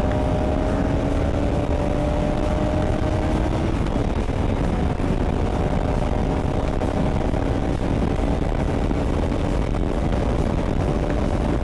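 Motorcycle engine running at riding speed under heavy wind rush on the microphone. The engine note climbs slowly over the first few seconds, then sinks into the wind noise.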